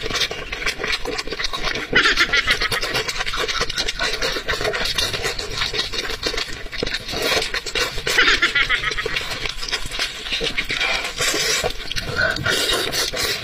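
Close-miked eating sounds: wet chewing, lip-smacking and slurping of saucy food, with sticky squelches as the food is torn apart by hand. The sounds come as a dense run of irregular smacks and clicks, with louder stretches about 2 and 8 seconds in.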